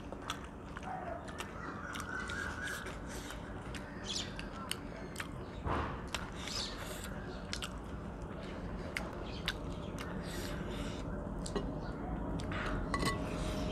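Chewing and lip-smacking of people eating rice and mutton curry with their hands, heard as a run of short, sharp mouth clicks.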